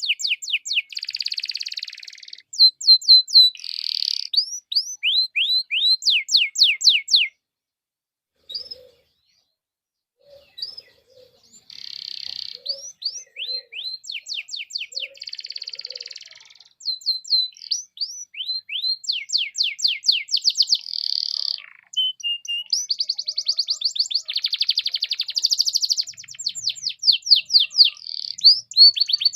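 Domestic canary singing a long song of fast repeated phrases: rapid trills of falling notes alternating with buzzy rolls. The song breaks off for a few seconds after about seven seconds, then resumes.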